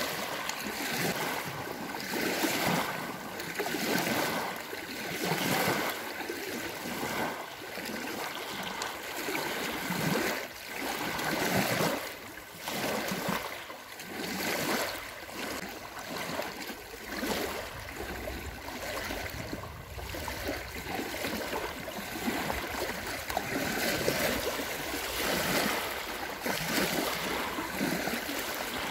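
Small waves lapping and splashing onto a sandy lake shore, each wavelet breaking in a swell of splashing every second or two. A low rumble joins in about halfway through.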